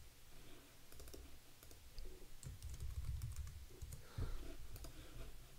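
Typing on a computer keyboard: faint, irregular key clicks as a word is typed.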